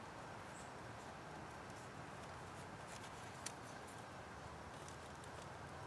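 Faint clicks and rustles of thin green wooden sticks being handled and pushed through a piece of raw duck meat, with one sharp click about three and a half seconds in, over a steady background hiss.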